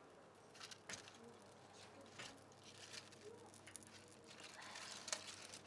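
Dry leaves crackling faintly and irregularly as they catch fire in a stove, with rustling as a hand arranges them.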